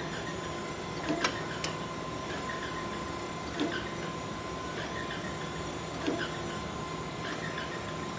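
Okamoto precision surface grinder running, its table traversing back and forth automatically under hydraulic power, with a steady hum and tone. A sharp clunk comes about every two and a half seconds as the table reverses and the feed indexes.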